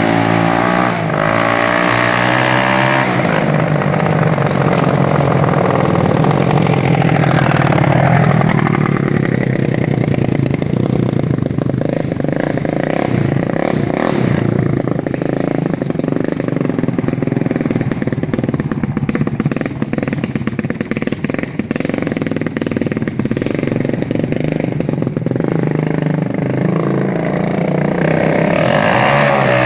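1986 Honda ATC350X's single-cylinder four-stroke engine running with no muffler, freshly rebuilt top end: idling, with the throttle blipped and the revs rising and falling near the start, again a few seconds later, and near the end.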